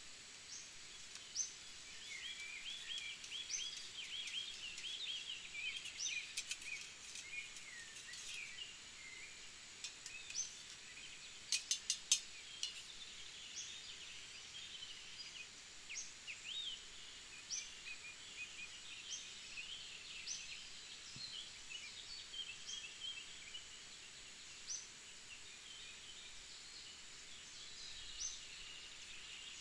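Woodland birds singing and chirping, with one bird repeating a short high note about every second and a half. A quick cluster of sharp clicks sounds about twelve seconds in.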